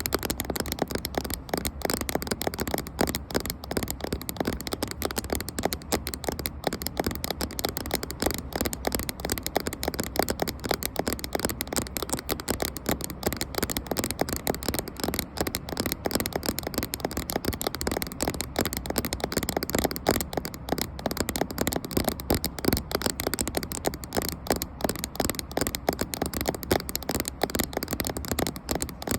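Fast, continuous tapping on a camera for ASMR, many small taps a second without pause.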